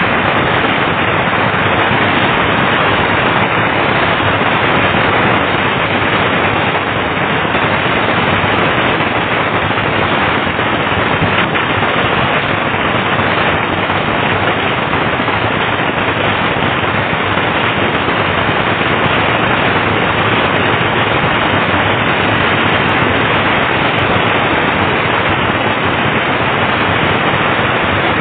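Firecrackers going off in a dense, unbroken rapid crackle, too fast for single bangs to stand out.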